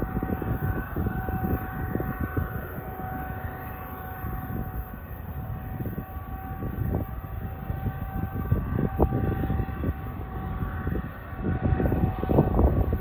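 BNSF diesel locomotives hauling a double-stack container train approaching: a steady whine over a low rumble, getting louder near the end as the train draws close.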